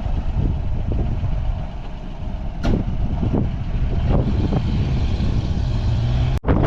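Car engine running with a steady low rumble, with a few light knocks about three seconds in. The sound cuts out briefly near the end.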